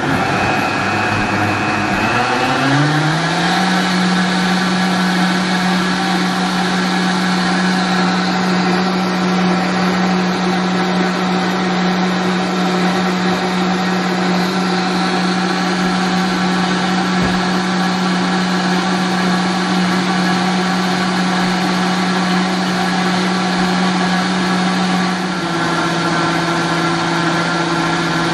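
Vitamix blender motor churning heavy cream at medium speed, whining up in pitch as it comes up to speed in the first few seconds and then running steadily. Near the end its tone drops slightly and changes, the sound of the cream beginning to thicken toward whipped cream.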